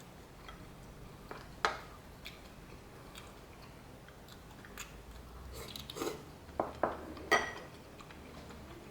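A person chewing food, with a few sharp clicks and clacks of utensils against dishes, the loudest about seven seconds in.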